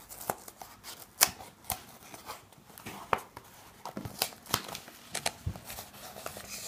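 A rolled cone of stiff glossy paper is handled and a strip of paper masking tape is pressed onto it: scattered short rustles, crinkles and taps.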